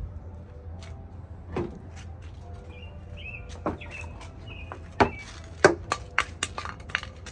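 Toy kitchenware being handled and set down: a string of sharp clacks and knocks, one or two early on and a quick run of them in the second half. Bird chirps sound faintly behind.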